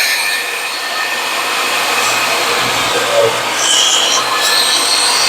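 Skil table saw running steadily, crosscutting a maple board.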